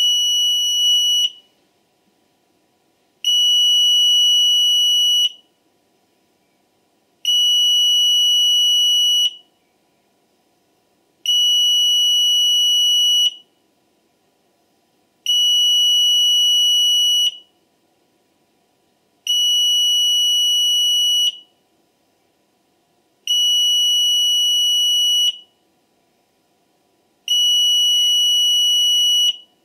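6th Sense International intruder alarm's sounder giving a steady high-pitched beep, about two seconds on and two seconds off, eight times, as the alarm is being armed.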